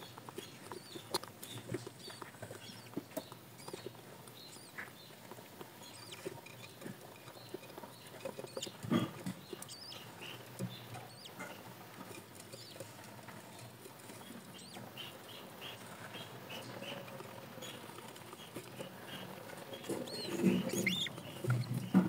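Faint scratching and shuffling of budgerigar chicks and an adult in a nest box, with soft, short high peeps, and one louder knock about nine seconds in.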